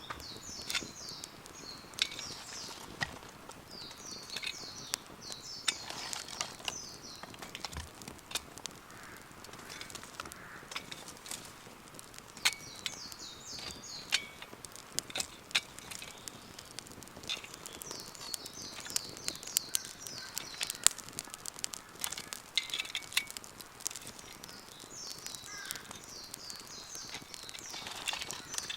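Wood campfire crackling, with frequent sharp pops of varying loudness. Birds sing in several bursts of quick, high warbling chirps that come and go every few seconds.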